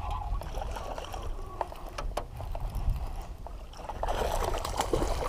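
Wind rumbling on the microphone on an open boat, with scattered sharp clicks and knocks and a louder patch of rustling noise near the end.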